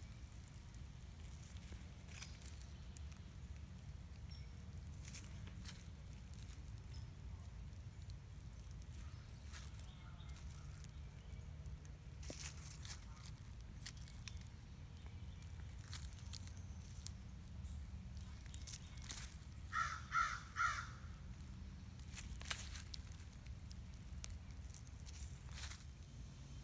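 Faint outdoor ambience: a steady low rumble with scattered clicks and crackles, and a short run of three quick calls about twenty seconds in.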